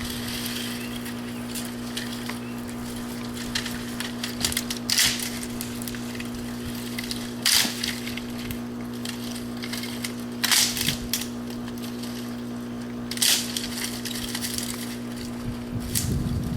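Repeated sharp crunching strokes, the loudest about one every three seconds with smaller cracks between, like woody brush or branches being broken or chopped, over a steady low hum.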